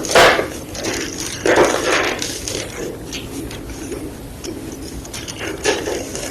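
Gym chalk blocks crunching and crumbling as they are crushed: a crisp crunch right at the start, a longer one about one and a half seconds in, another near the end, and faint crackling in between.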